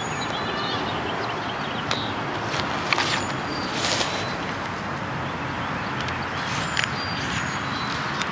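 Outdoor ambience: a steady rushing background noise with small birds chirping now and then, and a few brief soft rustles or taps.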